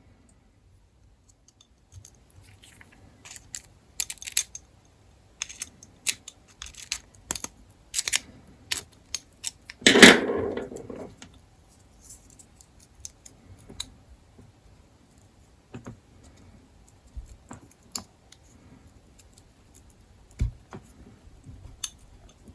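Small metal parts of a CJRB Hectare pocket knife clicking and clinking as it is handled and fitted together by hand. About ten seconds in there is a louder clatter lasting about a second.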